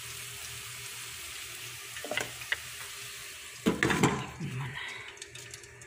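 Soaked rice sizzling in melted butter in a stainless steel pot, stirred with a wooden spatula that scrapes and knocks against the pot a few times. The loudest knocks come about four seconds in.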